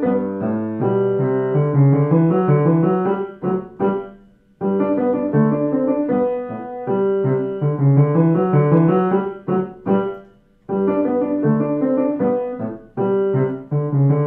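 Grand piano played with both hands: a tune over repeated low notes, in phrases broken by two short stops, about four seconds in and again about ten seconds in.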